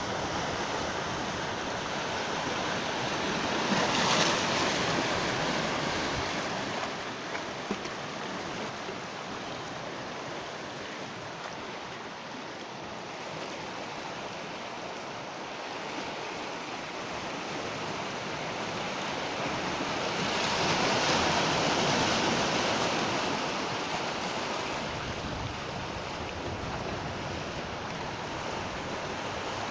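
Ocean waves breaking and washing on the shore, a steady surf rush with two bigger waves swelling about four seconds in and again near twenty-one seconds.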